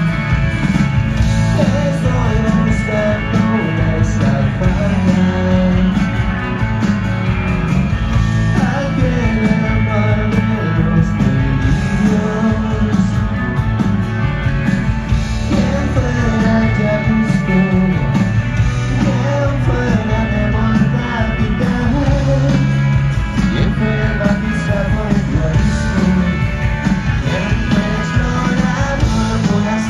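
Live rock band playing at full volume with electric and acoustic guitars, heavy in the bass, and a voice singing over it, heard from within a stadium crowd.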